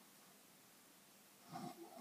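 Near silence with faint room hiss, then about one and a half seconds in a single snoring breath begins.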